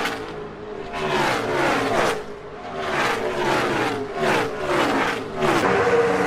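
NASCAR stock cars' V8 engines racing past one after another at full speed, each engine's pitch dropping as it goes by, about one car a second.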